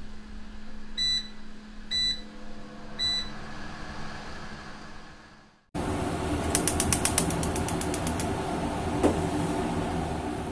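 Cooker hood touch panel beeping three times, about a second apart, over the low hum of its fan. Then a gas stove's igniter clicks rapidly for about a second as a burner is lit, over a steady rushing noise.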